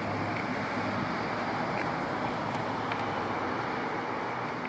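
Steady roar of road traffic with no distinct events.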